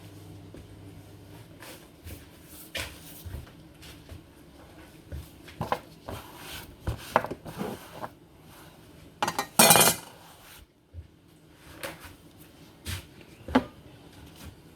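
Kitchen dishes and utensils knocking and clinking now and then, with one louder, ringing clatter about ten seconds in.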